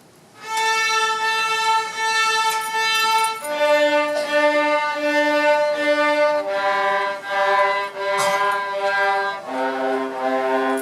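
A section of student violas bowing their open strings, four strokes on each string, stepping down in pitch string by string from the A string through D and G to the C string starting near the end.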